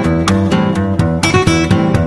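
Classical acoustic guitar played live: a brisk, rhythmic run of plucked notes and chords, about four strong strokes a second.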